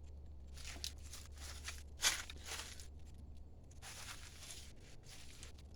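Rustling and small handling noises from parts and tools being moved about, with one sharp click about two seconds in, over a steady low hum.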